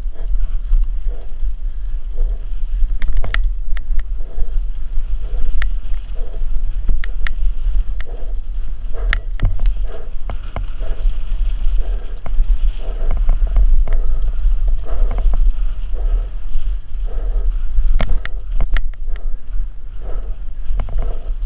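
Wind buffeting a helmet-mounted camera's microphone as a downhill mountain bike rolls fast down a dirt singletrack, with frequent sharp clicks and rattles from the bike over bumps.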